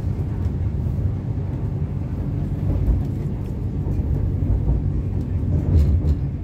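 MTR Kwun Tong Line C-Train running between stations, heard from inside the car: a steady low rumble of wheels on track and running gear, with faint scattered clicks.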